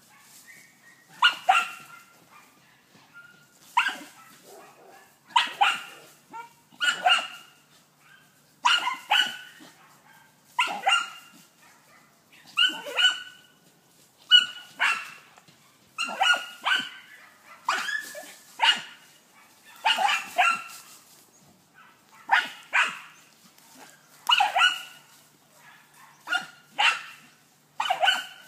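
Deutscher Jagdterrier barking without pause at a wild boar it is holding at bay: sharp barks every second or two, often in quick pairs.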